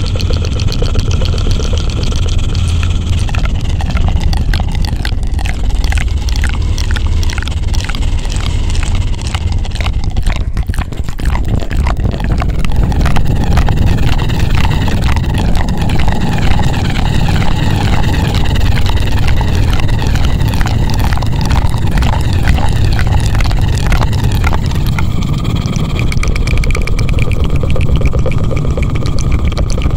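ASMR 'helicopter' trigger: hands rubbing rapidly over the microphone, making a loud, continuous whirring with a heavy low rumble and a fast, even pulse, much like a rotor.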